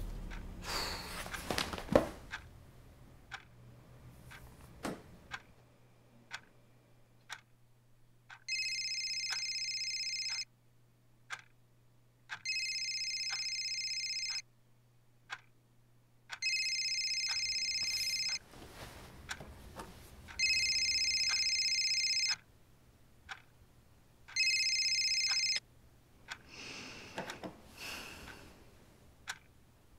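Smartphone ringing with an incoming call: a high electronic ringtone in two-second bursts, about every four seconds, five rings starting about eight seconds in. A clock ticks steadily behind it, about once a second.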